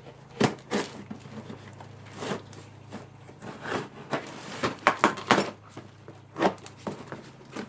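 Packing tape on a cardboard shipping box being slit with a small knife and the box handled: irregular short scrapes and rips, several in quick succession about five seconds in.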